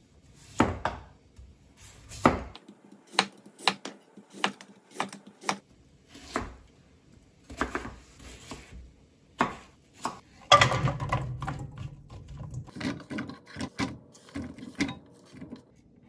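Kitchen knife chopping through a Korean radish on a wooden cutting board: separate sharp chops at uneven intervals. The loudest clatter comes about ten and a half seconds in, followed by a low rumble for a second or so.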